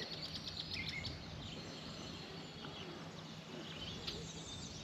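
Faint outdoor ambience: a steady background wash with a low, steady hum underneath and a few small bird chirps in the first second.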